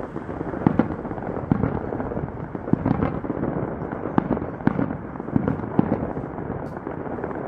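Distant fireworks display: a string of sharp bangs and booms, a couple of them coming in quick pairs, over a steady background rumble.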